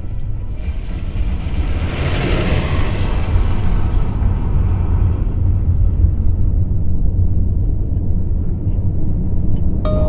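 Car driving on a road, heard from inside the cabin: a steady low rumble of engine and tyres, with a swell of road noise about two seconds in that fades away over the next few seconds.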